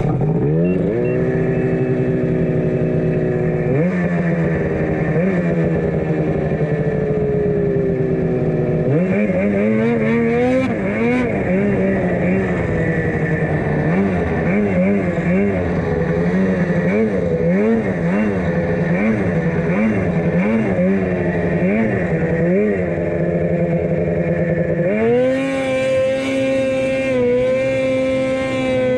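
Ski-Doo 600RS race snowmobile's 600 cc two-stroke engine with an MBRP race can exhaust, ridden hard. Its pitch climbs as it pulls away, then rises and falls with the throttle, pulsing about once a second through the middle. Near the end it is held at steady high revs with the front lifted in a wheelie.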